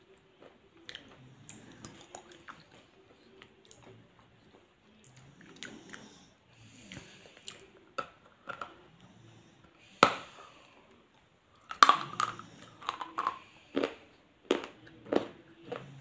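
A person biting and chewing crunchy food: sharp crunches, loudest about ten seconds in and in a quick run around twelve seconds, with softer chewing in between.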